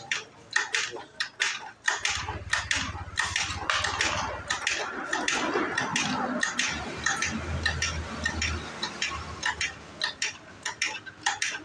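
Metal parts of a Kawasaki KLX 150 engine clinking and knocking as they are handled during teardown, a string of sharp clicks throughout. A low hum runs underneath for much of the time.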